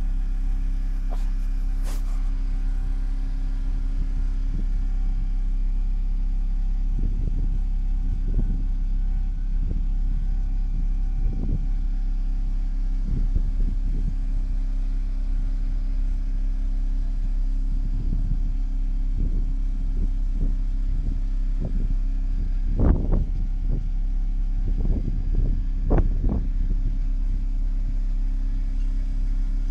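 Steady low rumble with a constant hum, with scattered soft knocks and thuds, the loudest about two-thirds of the way through.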